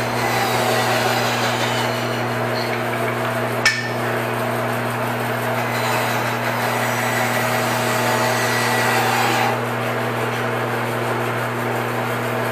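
Bandsaw running with a steady low hum, a rougher hiss over it that drops away about nine and a half seconds in. One sharp knock about four seconds in.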